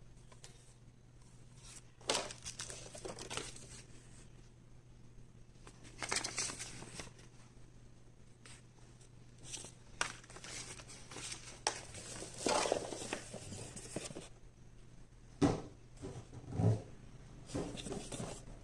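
Product packaging being handled and crinkled during unboxing, in irregular bursts of rustling, with a few soft knocks as items are set down near the end.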